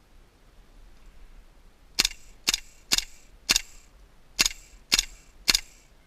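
KWA LM4 gas blowback airsoft rifle firing seven single shots, about two a second: four, a short pause, then three more.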